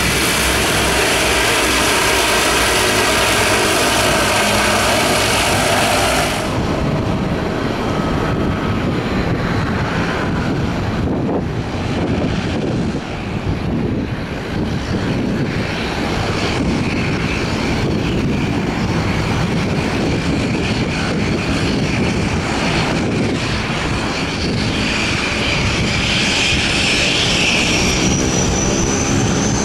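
The twin Pratt & Whitney Canada PW123AF turboprop engines of a Bombardier CL-415 water bomber run at taxi power, giving a steady propeller drone with a turbine whine. About six seconds in, the hissy top of the sound drops away abruptly and it turns duller. Near the end a high whine rises in pitch.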